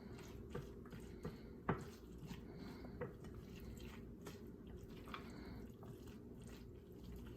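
Faint soft wet squishes and a few light clicks as ingredients are worked into a bowl of chicken salad dressed with Miracle Whip.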